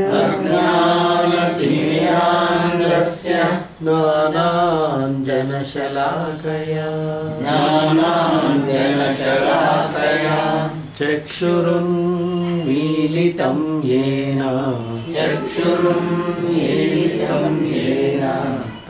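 Sanskrit verses chanted by one voice in a steady, recitative style. The pitch moves in steps between a few held notes, with short pauses for breath between phrases.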